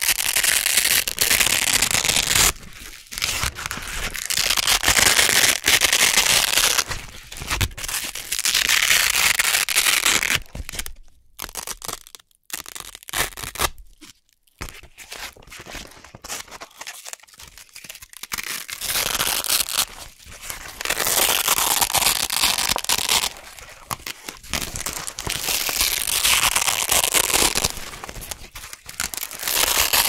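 Velcro hook-and-loop straps being peeled apart close to the microphone: a crisp, crunchy ripping crackle in pulls of a few seconds each. The middle of the stretch holds only short, quieter rips with brief pauses, and the long pulls resume after it.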